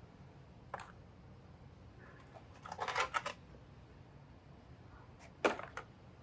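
Brief clicks and knocks of small plastic toy vehicles being handled: a light click under a second in, a rattly run of clicks around three seconds in, and a sharper knock a little after five seconds, followed by one more click.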